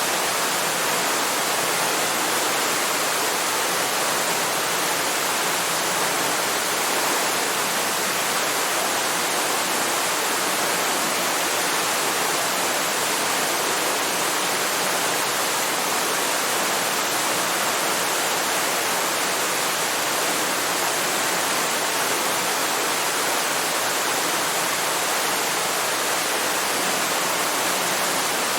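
Waterfall: a steady, unbroken rush of falling water, even and full across the range with little low rumble.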